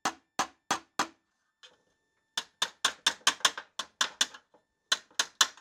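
Small hammer tapping on the thin 22-gauge sheet metal of a Porsche 356 backing plate, hammer-and-dolly work straightening a crushed-down area. Sharp metallic taps: four spaced blows, a pause of about a second, then a quick run of about six taps a second, and a few more near the end.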